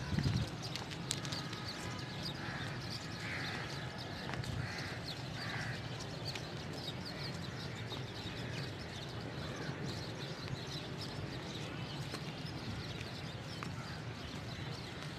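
Four short, harsh animal calls in a row a few seconds in, over a steady low rumble, with light high chirps scattered throughout.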